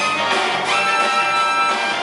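Jazz big band playing, with saxophones, trumpets and trombones over piano and drums, holding sustained brass chords; a new chord comes in a little under a second in.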